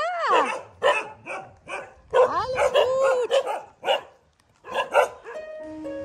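A dog barking in a string of short barks, with drawn-out yelps that rise and fall in pitch at the start and about two seconds in. Background music comes in near the end.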